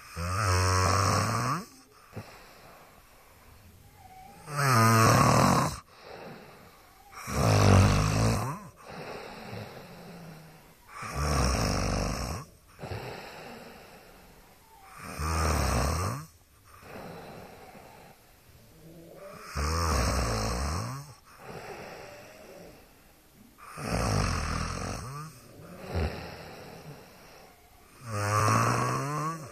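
A person snoring: eight loud snores, each about a second long, about one every four seconds, with quieter breathing between them.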